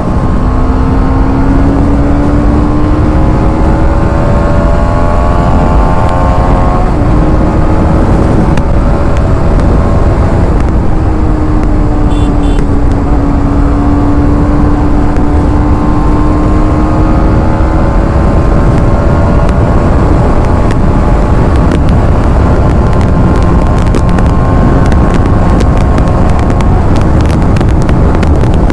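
TVS Apache RR 310's single-cylinder engine running under way, its note rising slowly in gear with breaks at shifts about 7 and 11 seconds in, over heavy wind rumble on the microphone.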